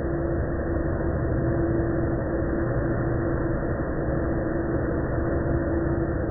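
Rushing, churning water of a cruise ship's wake, over a steady low rumble with a constant hum.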